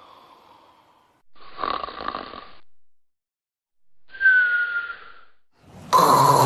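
Human snoring: a faint snore at the start, then three louder snores separated by silent pauses, the middle one with a high whistling tone. The overly long gaps between snores are the sign of breathing pauses, obstructive sleep apnea, which is called life-threatening.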